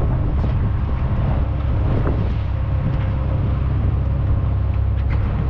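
A fishing boat's engine running steadily, a constant low drone with a faint steady whine above it.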